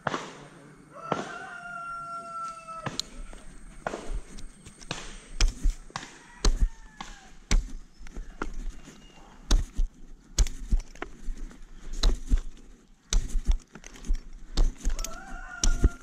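Irregular knocks and thumps as a climber works down a tree trunk with rope and a metal climbing frame. A rooster crows about a second in and again near the end.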